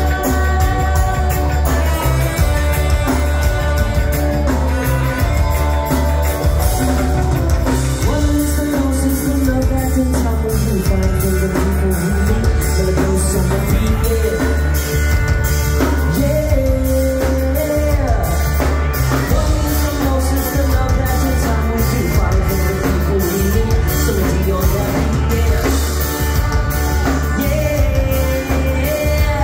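A live rock band playing loud through the venue's PA, recorded from within the audience: drum kit, electric guitars and keyboards with a voice singing over them.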